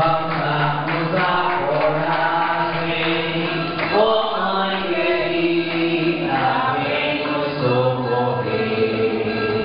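A group of voices singing a slow hymn together, with long held notes.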